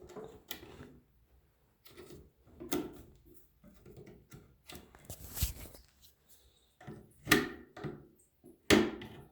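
Plastic toilet seat hinge parts being handled and fitted: a series of irregular clicks and knocks, the two loudest near the end.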